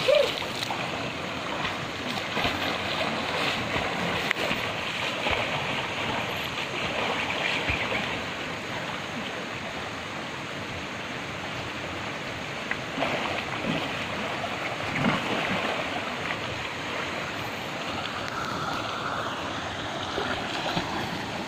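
River water rushing steadily, with the wash and small splashes of people moving and swimming through it.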